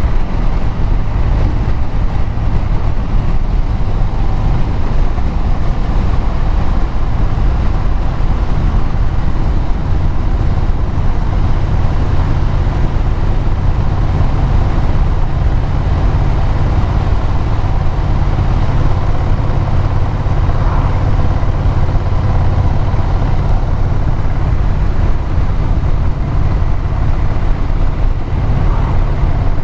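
A vehicle's engine and exhaust running at a steady cruise, with road and wind noise.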